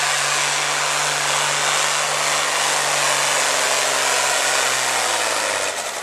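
Altered farm stock pulling tractor's diesel engine running wide open under load as it drags a weight-transfer sled, holding a steady pitch. About five seconds in the engine note drops and dies away as the pull ends.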